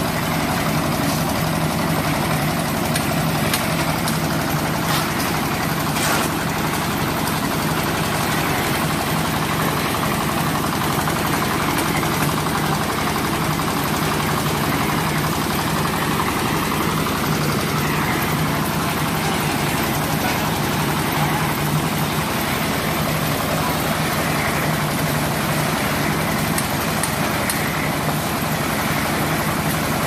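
Reversible concrete drum mixer running steadily, its engine droning at a constant pitch.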